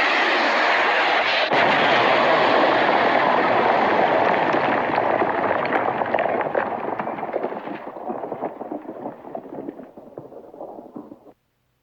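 Missile sound effect: a loud rushing roar that breaks into a crackling rumble, fades away over the last several seconds and cuts off abruptly just before the end.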